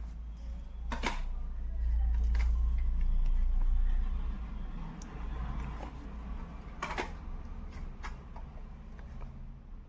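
Handling noise from plastic audio cassette cases being picked up and shown: several sharp clicks and knocks, with a low rumble that swells for a couple of seconds partway through.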